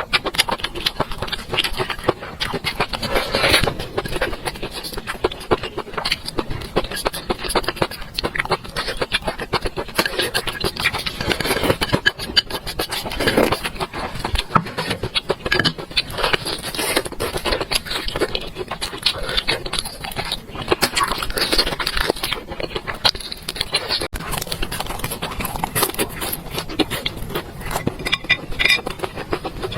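Close-miked eating sounds: chewing food, with a steady run of small clicks and scrapes.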